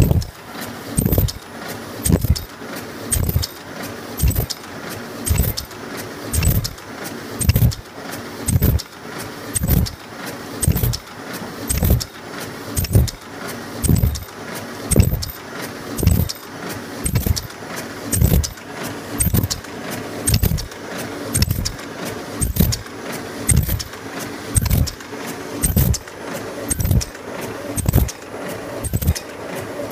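Pyramid tea bag tagging machine running, its mechanism knocking in an even rhythm of about three strokes every two seconds, with a metallic jingle over a steady mechanical hum.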